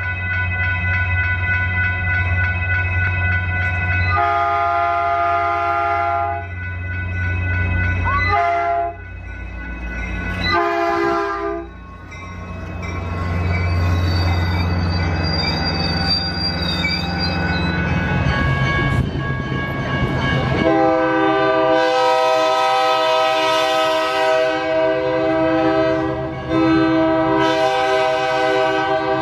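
Diesel locomotive air horns sounding over engine rumble: long chords at the start, a few short toots, then the rush of a Caltrain commuter train's bilevel cars going past. Another locomotive's horn then sounds in long, loud blasts with one brief break.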